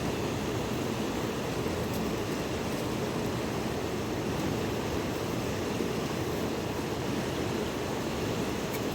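Steady rushing of river water, an even roar that does not change.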